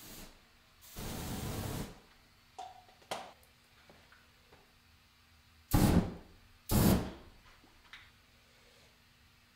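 Aerosol cans sprayed into an open flame. About a second in, a one-second hiss of alcohol hairspray spraying and burning. After some light clicks, there are two short, louder bursts a second apart past the halfway mark as carburetor cleaner ignites.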